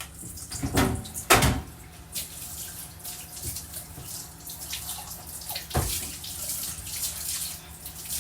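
Kitchen tap running water into a sink, with a few knocks and clatters, two in the first second and a half and one near the six-second mark.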